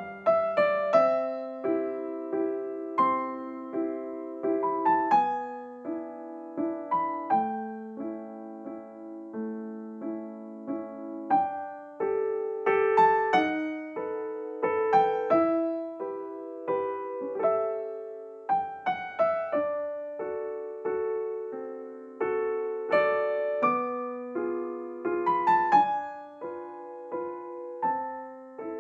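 Background piano music: a gentle melody over soft chords.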